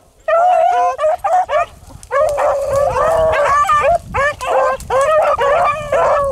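A pack of rabbit-hunting hounds baying together in full cry, many voices overlapping, as they run a rabbit's track. The calls start about a quarter second in and grow fuller from about two seconds on.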